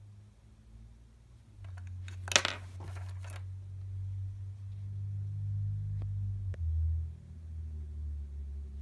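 Small handling sounds of plastic earbuds and cable: a short burst of light clattering and rustling about two seconds in, as the EarPods are set down on a wooden table, then a couple of single clicks, over a low steady rumble.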